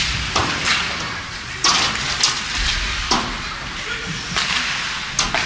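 Ice hockey play on the rink: a run of sharp clacks and scraping swishes from sticks, puck and skate blades on the ice, about seven in a few seconds, over steady arena noise.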